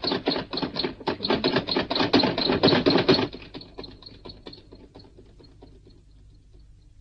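A rapid, even run of sharp clacks, about six a second, loud for about three seconds and then fading away.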